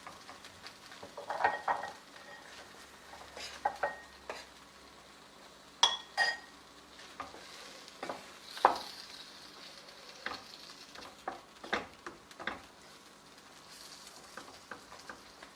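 A utensil stirring chicken pieces into curry gravy in a frying pan: irregular knocks and scrapes against the pan, with a light sizzle. A couple of ringing metallic clinks come about six seconds in.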